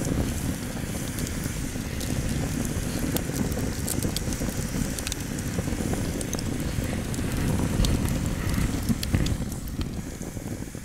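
Wood fire burning in a fire pit, a low rush of flame with scattered sharp crackles and pops from the logs; the rush eases off near the end.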